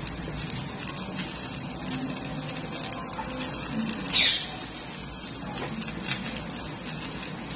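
Dosa crisping on a hot nonstick tawa, a steady sizzle with faint crackles. A single short high chirp sounds about four seconds in.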